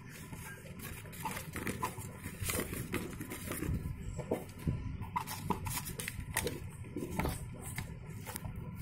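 Cardboard shipping carton and a phone's retail box being handled: irregular rustling, scraping and light knocks as the box is slid out of the carton and turned over.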